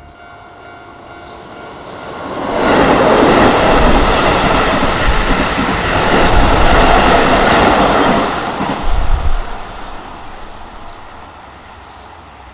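Keisei Main Line electric train passing over a level crossing: the rumble builds over about two seconds, stays loud for about six seconds with wheels clattering over the rail joints, then dies away after a few last clacks.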